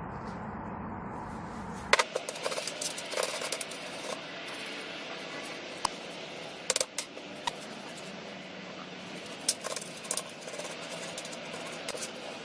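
A low machine drone cuts off about two seconds in. Small metal parts then clink and tap now and then over a steady hiss.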